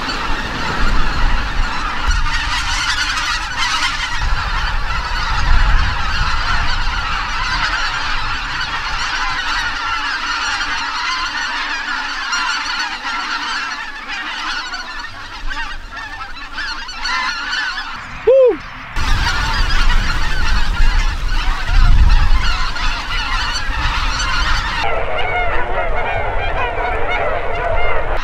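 A large flock of wild geese honking continuously as they take off and fly overhead, many calls overlapping into one dense clamour. A short tone and a brief break come about two-thirds of the way through.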